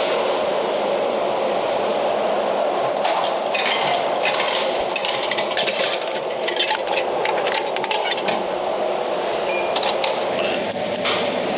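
A run of irregular small clicks and clinks over a steady background rumble: a coffee-milk drink being taken from a vending machine and handled.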